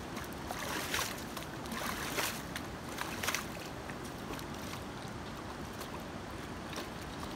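Shallow river water running steadily, with a few splashes as a long-handled shovel is swung through the water and dug into the gravel riverbed, mostly in the first half.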